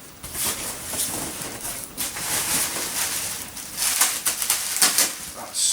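Bubble wrap packaging being pulled apart and handled: dense rustling and crinkling with many sharp crackles.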